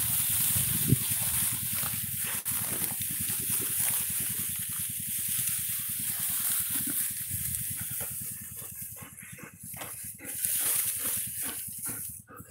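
Dry rice stalks and grass rustling and swishing steadily as dogs and a walker push through them. Near the end a dog pants close by.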